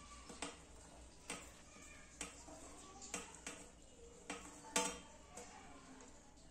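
Stainless steel plate clinking against the rim of a steel pot as chopped fruit is pushed off it into milk: irregular light clicks and taps, the loudest just before five seconds in.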